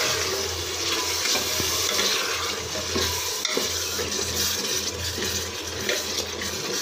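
Unboiled chickpeas being stirred with a metal ladle into masala frying in oil in a pressure cooker: a steady sizzle with the ladle scraping and ticking against the pot, over a low steady hum.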